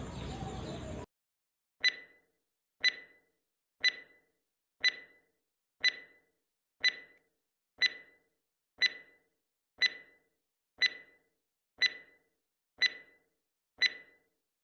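Countdown timer sound effect: a short, sharp, high tick once a second, thirteen in a row, over dead silence.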